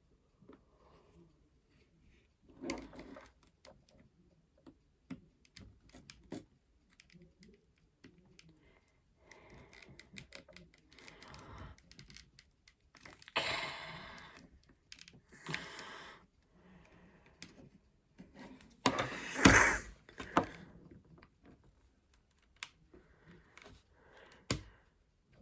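Small plastic clicks and scraping as a pocket knife pries at the snap-fit plastic shell of an Xbox media remote held together by strong clips. A few longer scraping rasps stand out, the loudest about three-quarters of the way through.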